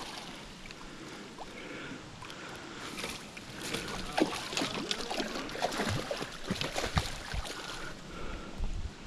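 Hooked fish thrashing and splashing at the water's surface close to the bank, a busy run of splashes and knocks that is densest from about three to eight seconds in.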